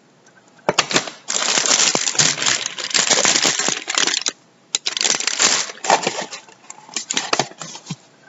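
Plastic packaging crinkling and rustling as it is handled, in two long stretches followed by scattered short crackles and clicks.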